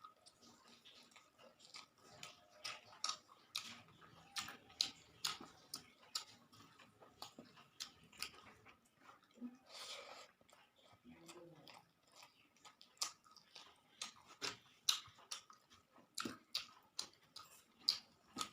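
Close-up mouth sounds of a person chewing and eating rice with small fish curry: a run of soft wet smacks and clicks, several a second, with a longer slurp-like rush about ten seconds in.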